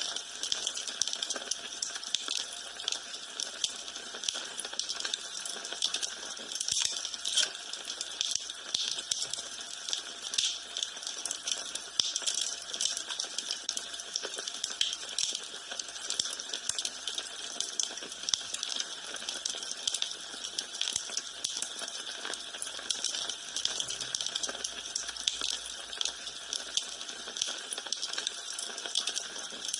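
Wood fire burning in a fireplace: a steady hiss with frequent irregular crackles and pops.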